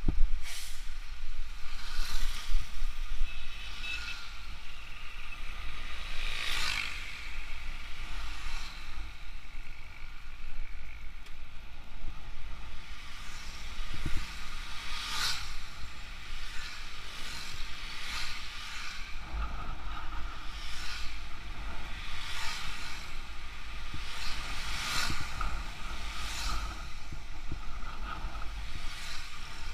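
Road and wind noise from riding past a line of stopped trucks: a steady wind rumble on the microphone, with a rushing swell every second or two as each truck goes by.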